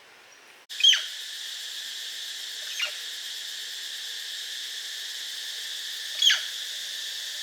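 Four short, sharp high calls, each sliding steeply down in pitch, over a steady high insect drone that starts abruptly under a second in.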